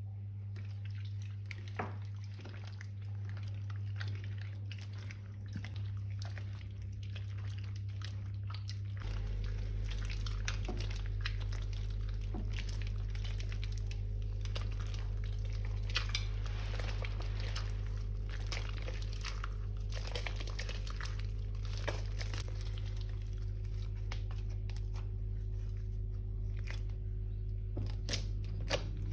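Slime being squished and mixed by hand, with many small wet crackles and clicks that become busier about a third of the way in, over a steady low hum.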